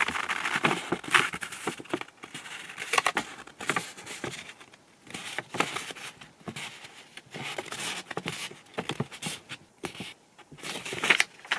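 Paper scroll rustling and crackling in the hands as it is held open and handled, in short irregular crackles with a few quieter moments.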